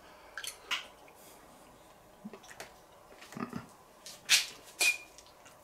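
Someone eating: a fork scraping and clinking on a porcelain plate, with chewing, heard as a scatter of short clicks and scrapes, the loudest two a little after four seconds in.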